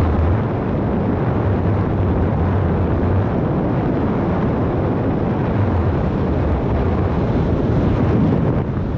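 Steady rush of wind buffeting the microphone of a camera carried by a paraglider in flight, heaviest in the low rumble.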